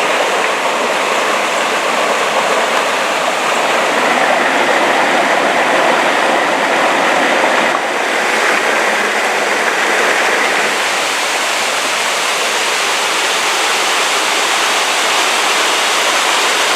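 Seeley Creek Falls: a waterfall pouring into its pool, a loud, steady rush of water.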